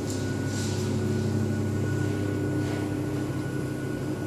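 CNC router with a 3 kW water-cooled spindle running: a steady high whine over a low machine hum, with a couple of brief hissy swells.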